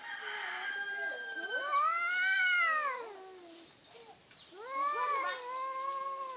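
Domestic cats in a face-to-face standoff, yowling: long, drawn-out, wavering threat yowls. The loudest rises and falls about two seconds in, and another starts near five seconds and is held.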